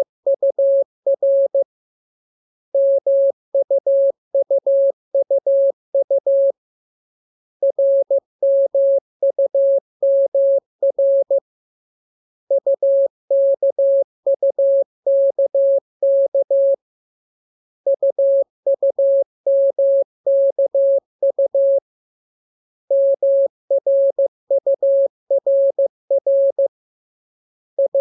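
Morse code (CW) practice tone: a single steady beep keyed on and off in dots and dashes, sent as groups of characters about four seconds long with pauses of about a second between groups.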